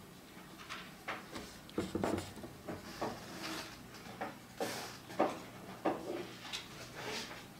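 Brush pen strokes on paper: a run of short, irregular swishes and scrapes, some sharper than others.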